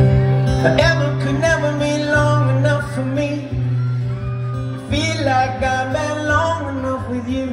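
Male voice singing live over acoustic guitar, in two phrases: one starting about a second in, the other about five seconds in, with sustained low notes underneath.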